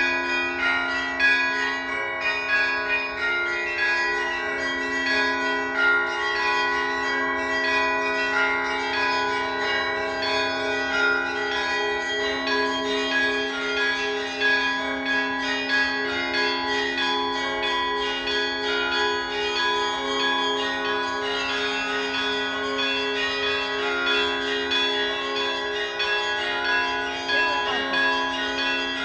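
Several bells ringing together without pause, their strokes overlapping so that the tones keep sounding over one another.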